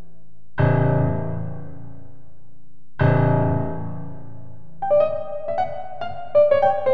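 Solo piano playing: two heavy low chords, struck about half a second and three seconds in, each left to ring and fade, then from about five seconds in a run of quick, short notes higher up.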